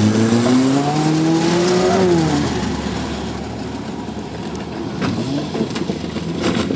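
A small sedan's engine revving up as it accelerates close by, the pitch climbing for about two seconds before it drops away. After that, fainter engine noise of cars in the field, with a few knocks.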